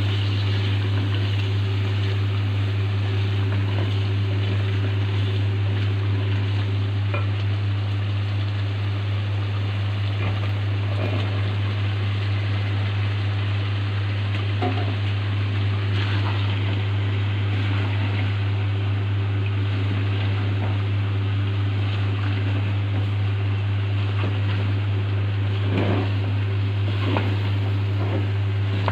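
Steady low mechanical hum under a constant hiss, with a few faint clicks near the end.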